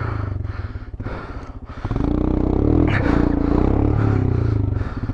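Motorcycle engine running, then revved harder about two seconds in and held there as the rider tries to drive the stuck bike out of the rough trail.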